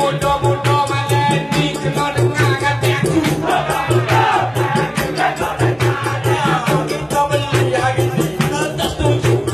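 Live dikir barat music: a tukang karut singing into a microphone over a steady, fast beat of hand drums and rattles.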